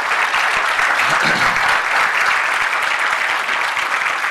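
Congregation applauding, a dense, steady clapping.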